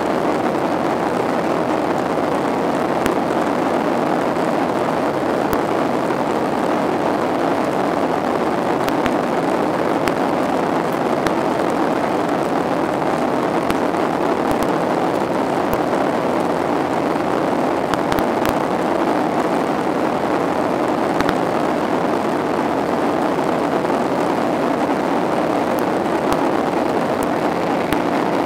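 Steady cabin noise inside a Boeing 737-800 airliner: the even rush of engines and airflow around the fuselage, with a few faint clicks.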